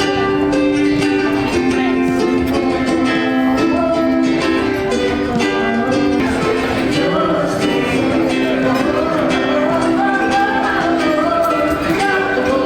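Background music: bright strummed ukulele or guitar with a steady beat and a melody line.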